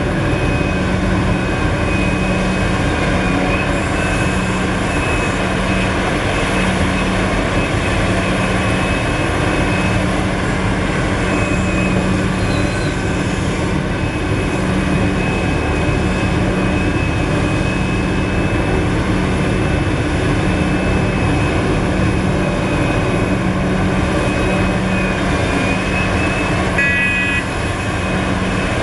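Heavy diesel engine of a Liebherr R974 crawler excavator working under load while digging and loading a dump truck, a steady low drone that swells and eases with the work, with a thin steady high whine over it. A short tone sounds briefly near the end.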